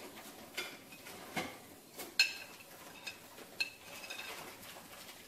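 A kitchen knife scraping and tapping on a plate as food is pushed off it, with about half a dozen sharp clinks of the blade against the plate, the loudest about two seconds in.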